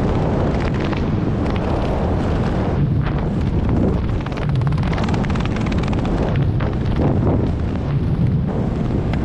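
Wind buffeting a small action-camera microphone during parachute canopy flight: a steady low rumble with irregular gusts.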